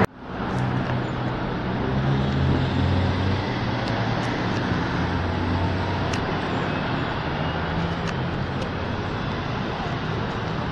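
City bus engine running amid steady street traffic noise, its low drone swelling twice.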